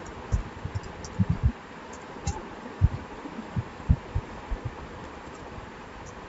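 Computer keyboard keystrokes picked up as a dozen or so soft, irregular low thuds, with a steady faint hiss beneath.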